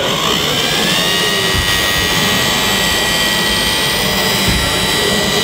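A small motor's high whine starts suddenly, rises a little in pitch over the first second, then holds steady, with a hiss above it.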